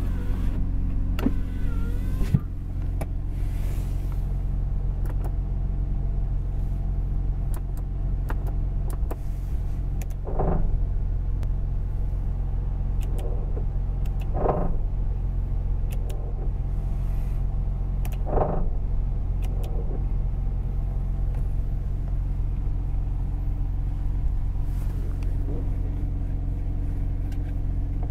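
Mazda RX-7's twin-turbo two-rotor rotary engine idling steadily, heard from inside the cabin, with three brief bumps about four seconds apart.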